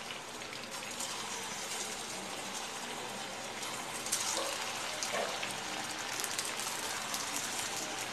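Rava and potato fingers deep-frying in hot oil: a steady sizzle of bubbling oil, with louder crackles about four seconds in as another finger is lowered into the oil.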